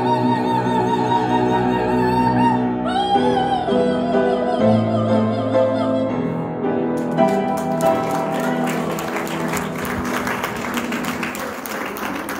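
A mezzo-soprano, amplified through a handheld microphone, holds her final sung phrases with a wide vibrato over piano accompaniment. From about seven seconds in, audience applause breaks out and grows denser under the last piano notes.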